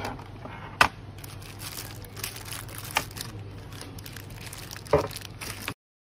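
Handling noise around a plastic satellite receiver box: three sharp clicks or knocks, about one, three and five seconds in, over a crackling, crinkling rustle and a steady low hum. The sound cuts off abruptly just before the end.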